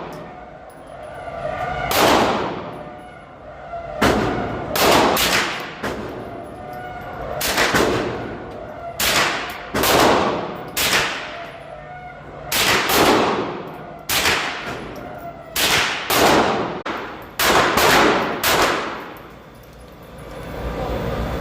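A .22 rimfire HK416-style rifle fired shot after shot, about twenty single sharp cracks at an uneven pace, sometimes two or three in quick succession, each with a short echo.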